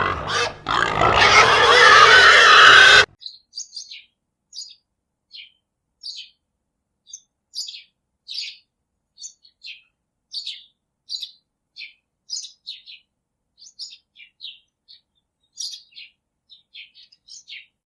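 Bird chirping: short, high, scattered chirps with gaps of silence between them. Before that, a loud, dense sound effect cuts off abruptly about three seconds in.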